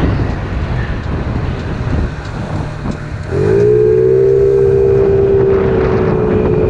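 Kymco Agility 50 scooter engine with a 72cc big bore kit being run in. At first there is a low engine note under wind noise. About three seconds in the throttle opens and the engine note climbs quickly, then holds a steady, loud, high drone as the scooter accelerates.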